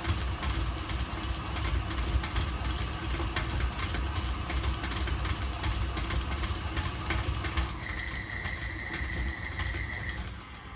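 KitchenAid stand mixer running at a raised speed, its motor humming steadily as the beater churns a thick bean-burger mixture. A thin high whine joins for about two seconds near the end, and the mixer is switched off at the very end.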